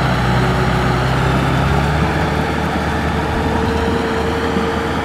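Kubota tractor's diesel engine running steadily under load as it drags a levelling board through flooded paddy mud, its pitch shifting slightly about two seconds in.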